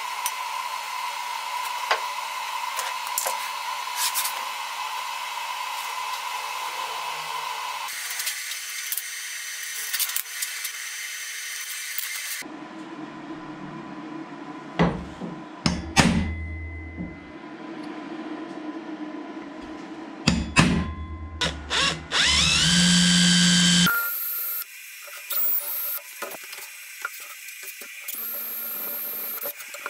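Metalworking sounds: steel parts handled and fitted together with a few sharp knocks, then a cordless drill whines as it rises to speed and drills into steel plate near the end.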